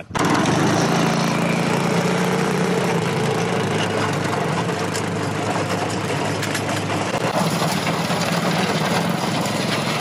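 Mini tracked bulldozer's small engine running steadily as the machine drives, with its tracks crunching over gravel.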